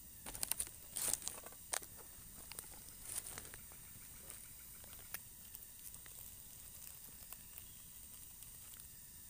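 Small fire of dry twigs and leaves crackling, with a cluster of sharp pops in the first few seconds and scattered lighter snaps after.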